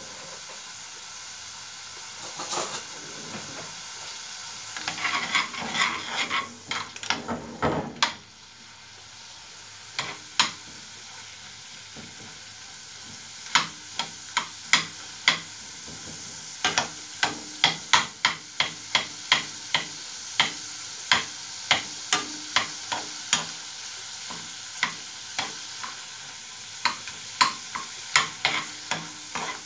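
Prawn heads and a whole garlic clove frying in oil in a non-stick frying pan, sizzling steadily. A spoon stirs and presses them, knocking against the pan now and then early on and about two or three times a second through the second half.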